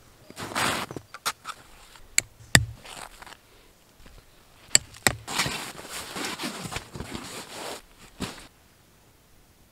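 Nylon tent fabric rustling and sharp clicks as tent poles and plastic pole clips are handled, the loudest click about two and a half seconds in, then a longer stretch of rustling with a last click near the end.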